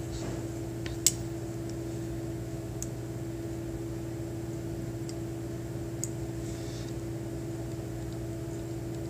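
A steady, even hum made of several fixed pitches, with a few faint clicks, the sharpest about a second in.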